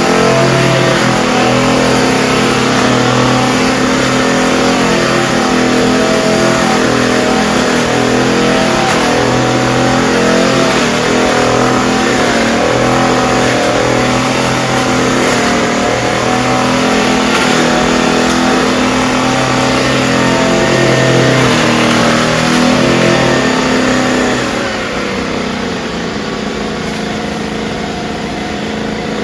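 Small engine of a disinfection machine running loud and steady, its pitch wavering slightly. About 25 seconds in it drops to a quieter, lighter drone.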